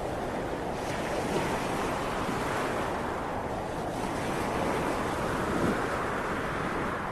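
Ocean waves surging and washing back, a continuous rushing noise that swells and eases in slow surges.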